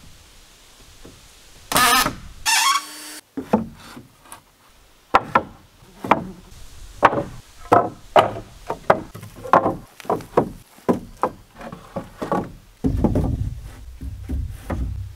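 Wooden pallet boards knocking and clattering against a timber A-frame as they are set in place: a long run of sharp, irregular wooden knocks. Two loud short bursts come about two seconds in, and a steady low rumble takes over near the end.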